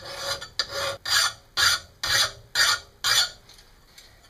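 Hand file rasping along the edge of a steel lawn mower blade to take off the burrs left by grinding: about seven strokes, roughly two a second, that stop about three and a half seconds in.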